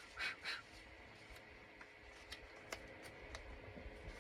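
Paper pieces being handled and sorted through by hand: two short rustles in the first second, then faint scattered ticks and taps.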